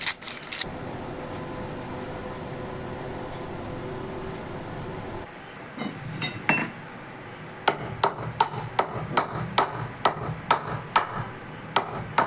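Metal hammer blows driving a new wheel bearing into a motorcycle's front wheel hub. A few scattered strikes come first, then a steady run of sharp blows, about two or three a second, over the second half.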